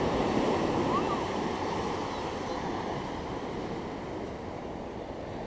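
Ocean surf breaking and washing up the beach, with wind on the microphone; the rush eases off gradually.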